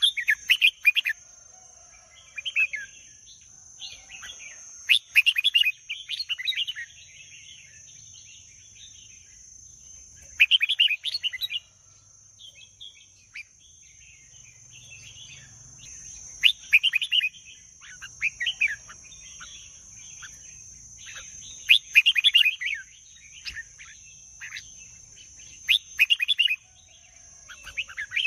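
Red-whiskered bulbul singing short, quick phrases every few seconds, over a steady high-pitched buzz.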